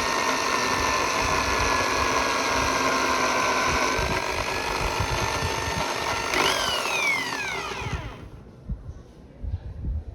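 Small electric drill running steadily as it drills at a pin in a Swiss Army knife. It is switched off about six and a half seconds in, and its whine falls as it spins down. A few faint knocks follow.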